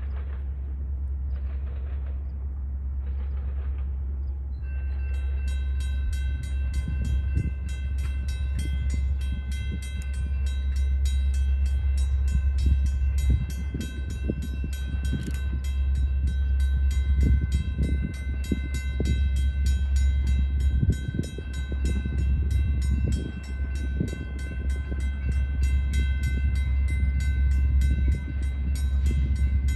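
Freight train approaching from a distance under a heavy, gusting low rumble. From about five seconds in, a level-crossing bell rings steadily with rapid, even strikes, the signal that the crossing is active for the oncoming train.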